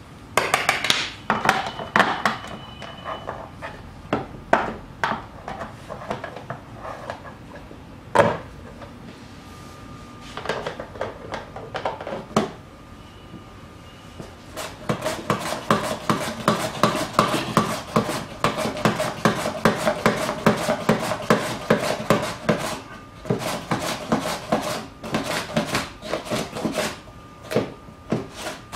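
Carrot being grated on a plastic box vegetable slicer: quick back-and-forth scraping strokes across the blade that run in rapid bursts from about halfway through. Before that, scattered knocks and clicks from the slicer and vegetables being handled on the table.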